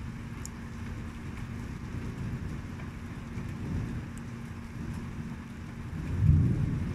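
Steady rain falling, with a low rumble that swells up about six seconds in.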